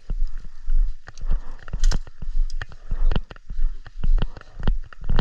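Footsteps of a person walking fast or jogging, a thud about twice a second, with the rustle and knock of gear and a body-worn camera jostling on each step.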